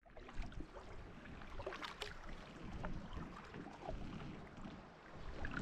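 Water sounds around a kayak moving along a creek: a steady wash with scattered small splashes and knocks.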